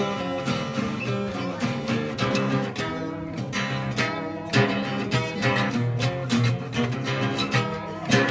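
Acoustic guitar being played, notes plucked and strummed in quick succession.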